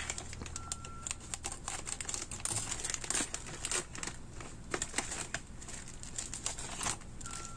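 Plastic food packaging crinkling and rustling as it is handled and opened, with many irregular crackles.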